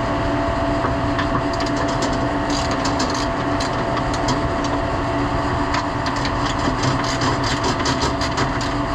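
Ratchet wrench clicking in quick runs while loosening the 13 mm mounting bolts of a motor drive unit, over a steady machinery hum with a few held tones.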